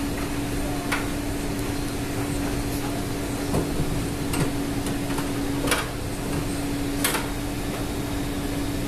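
Steady machinery hum with one constant low drone, broken by a handful of short, sharp clicks and knocks.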